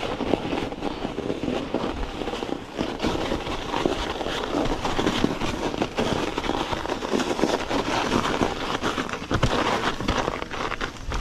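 Mountain bike tyres rolling over a snow-packed trail, crunching and crackling in a dense, continuous run of small clicks.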